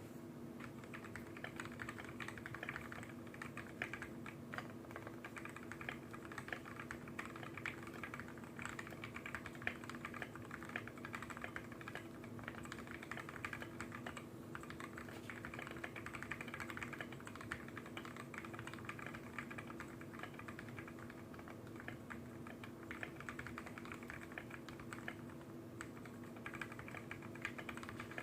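Continuous typing on a custom 60% mechanical keyboard: lubed and filmed 'fake' Tealios v1 linear switches on a brass plate, with XDA keycaps, giving a fast, steady run of keystrokes. A low steady hum runs beneath the typing.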